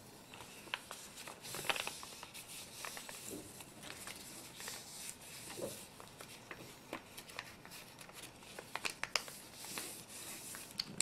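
A sheet of lined notebook paper being folded by hand: rustling and sliding, with many short, sharp crackles as creases are pressed in and run flat with the fingers.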